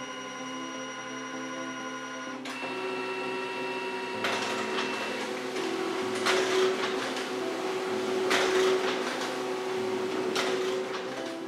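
Canon MF270-series mono laser multifunction printer making a copy from its automatic document feeder. A steady motor whine gives way about four seconds in to the whirring rush of paper feeding through, with three louder surges in the second half.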